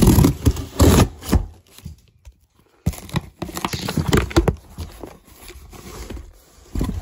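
Scissor blade scraping and slicing through packing tape on a cardboard box, in uneven strokes. After a brief pause, cardboard flaps and the box's contents rustle as the box is pushed open and searched.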